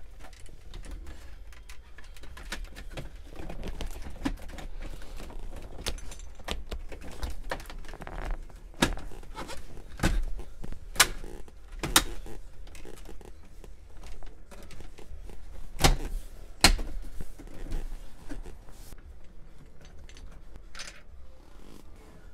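Plastic dashboard trim of a Ram pickup being handled and pressed back into place, with rustling and several sharp clicks and snaps as its retaining clips seat into the dash.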